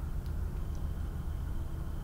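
Steady low background rumble and hum, with two faint clicks in the first second.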